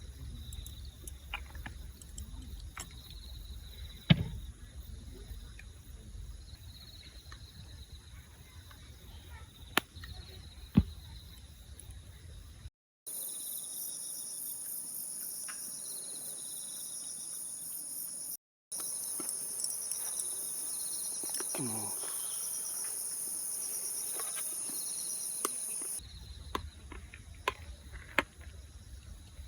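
Outdoor ambience of insects chirping: a wavering high chirp over a low rumble with a few sharp knocks, then after an abrupt cut a louder, higher, steady insect drone for about thirteen seconds before the first sound returns.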